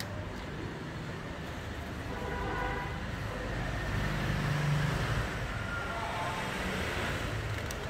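Steady background traffic noise, with a vehicle's engine swelling about four seconds in.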